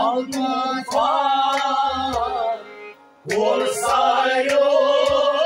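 Kashmiri folk song: male voices singing to a harmonium's steady drone, with a bowed sarangi and sharp plucked or struck strokes. The singing breaks off briefly a little under three seconds in, then comes back.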